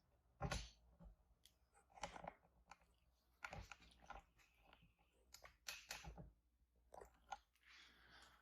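Faint, scattered rustling, crinkling and light clicks of things being handled and moved about, a dozen or so short separate noises.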